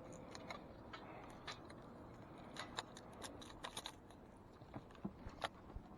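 Faint, scattered light clicks and ticks of small hard objects being handled, bunched together about halfway through, with a louder single click near the end.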